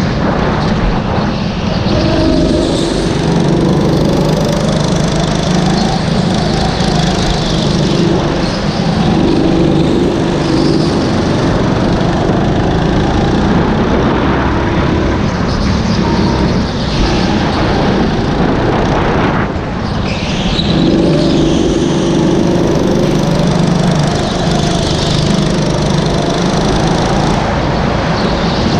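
Rental go-kart engine running at speed, heard from on board. Its pitch rises and falls with the throttle through the laps, with a brief lift-off about two-thirds of the way in.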